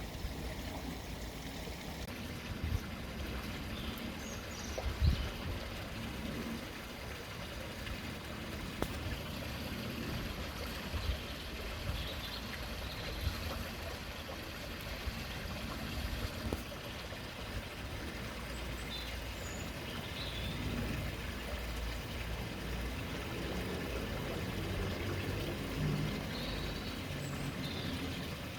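Steady trickle and splash of water running into a garden koi pond, over a low background rumble.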